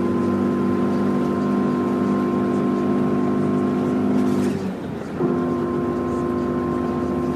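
Car engine droning at a steady pitch, heard from inside the car over road noise. The engine note drops away briefly about four and a half seconds in, then comes back at the same pitch about half a second later.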